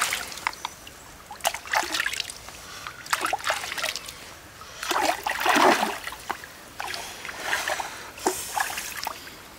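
Shallow stream water splashing and trickling in irregular swells as hands reach in to gather clams, with scattered short sharp clicks.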